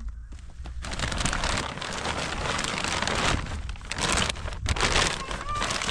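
Dense crackling, pattering noise made of many fine clicks, building up about a second in and then holding on.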